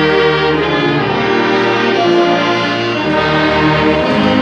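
An orchestra playing, with brass and bowed strings holding sustained chords that change about once a second.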